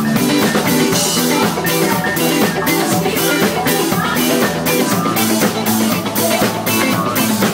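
Live cover band playing rock-style music loud, a drum kit keeping a steady beat under guitar.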